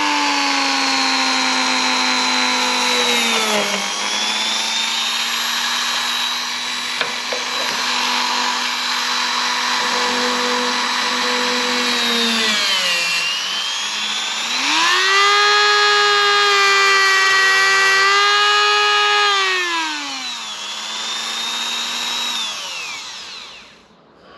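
Dremel rotary tool grinding rust off a car's steel rear window frame. Its high motor whine sags in pitch several times as it is pressed into the work, rises again as the load comes off, and winds down to a stop near the end.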